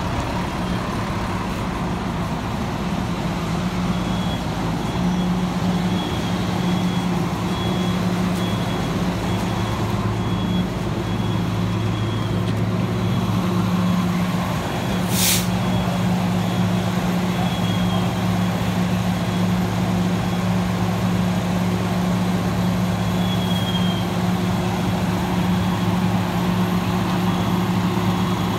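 A fire engine's diesel engine running steadily at a raised speed to drive its water pump, giving an even drone. A brief sharp hiss cuts in about halfway through.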